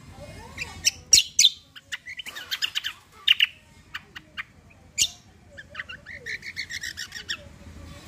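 Caged kecial kombo singing: a string of sharp chirps and whistles, with a rolling trill of about eight even notes a second near the end.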